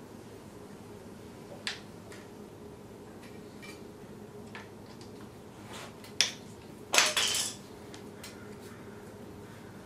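Light metallic clicks and clinks of a hex key working the triple clamp pinch bolts on a motorcycle fork leg, scattered and irregular, with a louder metal clatter about seven seconds in.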